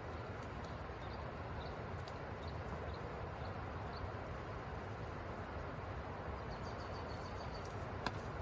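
Outdoor ambience: a steady rushing noise with faint, short bird chirps about every half second for the first few seconds and a brief high trill near the end. A single sharp click comes just before the end.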